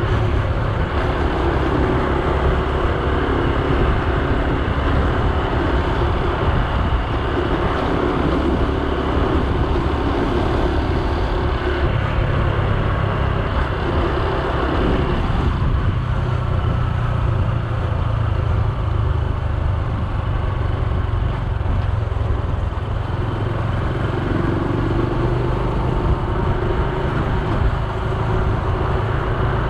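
Honda Super Cub C125's air-cooled single-cylinder four-stroke engine running while riding, with road and wind noise. The engine note shifts about twelve seconds in and again about sixteen seconds in.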